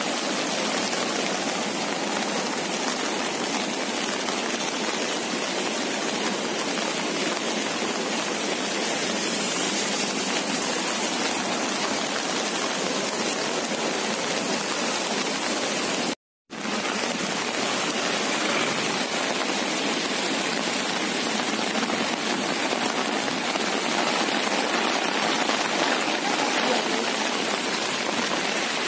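Fast floodwater rushing down a swollen river channel, a steady even noise of running water. It cuts out for a moment about two-thirds of the way through, then steady heavy rain and running water go on.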